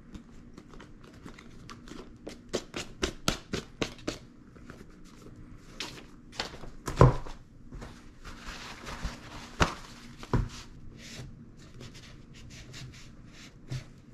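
Paper crinkling and rubbing as leather work boots are wiped down with damp paper towels over a brown paper bag, with quick crackles in runs and a few louder knocks of a boot against the table.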